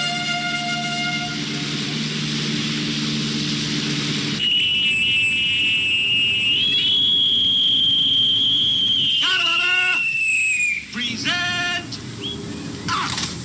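Low held tones for about four seconds, then a shrill, high whistled note held for about five seconds. The whistle steps up slightly and then slides down, followed by shorter warbling notes. It fits a boatswain's call piping an admiral aboard a warship.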